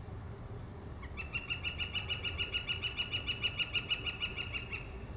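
Red-shafted northern flicker giving its long call: a rapid, even series of loud notes, about seven a second, starting about a second in and lasting around three and a half seconds.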